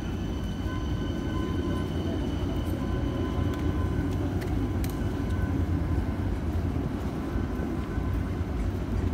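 Steady low rumble of city street traffic, with a faint steady whine over it.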